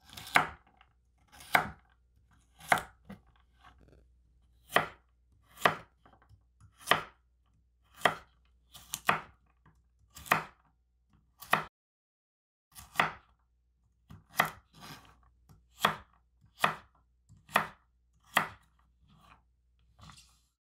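Victorinox 8-inch chef's knife chopping carrot sticks into cubes on a wooden cutting board: a sharp chop of blade through carrot onto the board about once a second, with a short pause about twelve seconds in. Softer handling sounds near the end as the cubes are gathered.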